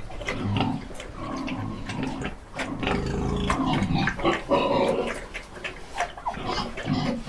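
An animal vocalising in low, repeated calls, mixed with many sharp clicks and knocks.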